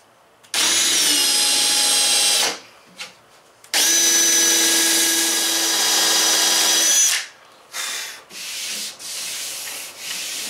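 Cordless drill boring pilot holes through a plywood trailer wall, in two runs of about two and three seconds with a steady motor whine. Then come a few softer brushing or scraping sounds against the plywood.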